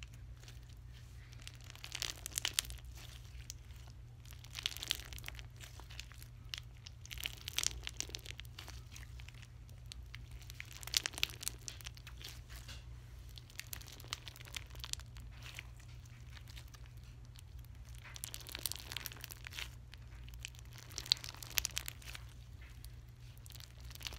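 Bead-filled slime squeezed and kneaded in the hands, giving short bursts of crackling and clicking every few seconds as the beads and slime are pressed together.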